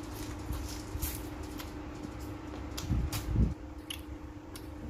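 Close-up eating sounds of a person chewing shrimp: scattered wet mouth clicks and smacks, with two low thumps about three seconds in, over a steady low hum.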